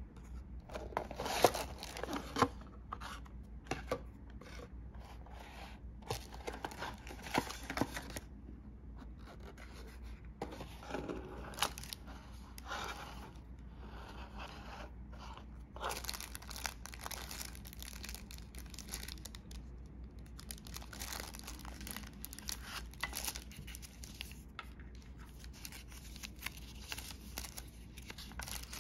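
Watch packaging being opened by hand: tearing, crinkling and rustling of the wrapping in irregular bursts, with occasional sharp clicks and taps. The loudest clicks fall in the first few seconds.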